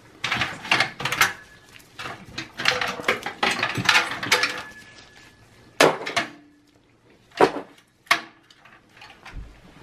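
Computer cables and their plastic connectors being handled inside a steel desktop PC case: a few seconds of continuous rattling and clicking, then three separate sharp knocks against the metal chassis.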